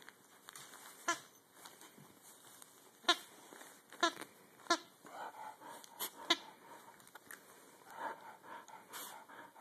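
Squeaker in a plush chew toy squeaking as a dachshund puppy bites down on it: about six short, high squeaks at irregular intervals, with soft chewing and rustling in between.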